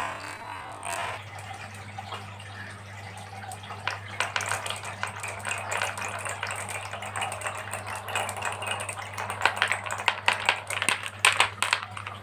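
Many marbles clicking and clattering down a marble run track: a rapid rattle that builds about four seconds in and is loudest near the end, over a steady low hum.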